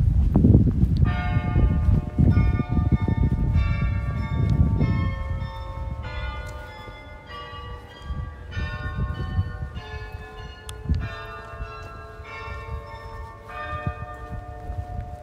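Church bells ringing from a tower: bells of different pitch are struck about once every second and a quarter from about a second in, each ringing on under the next. Low rumbling street noise is underneath, heavier in the first few seconds.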